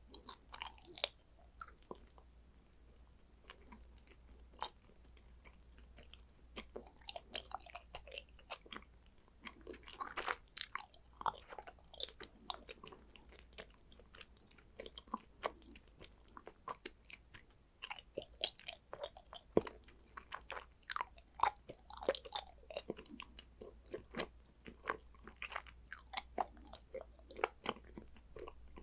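Condensed-milk chocolate being bitten and chewed close to the microphone: many sharp, irregular crisp clicks of mouth and biting sounds, busier from about six seconds in.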